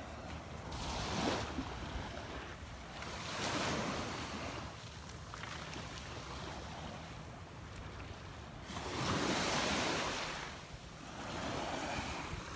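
Small waves washing up on a sandy beach, each wash swelling and fading every few seconds, over a low rumble of wind on the microphone.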